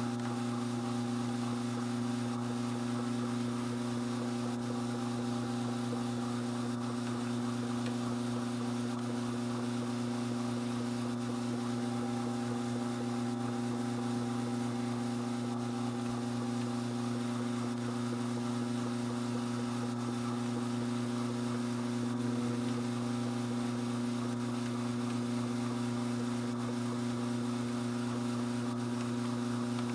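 Strauch Mad Batt'r electric drum carder running steadily at about half its top speed, its motor and drums giving an even hum of several held tones.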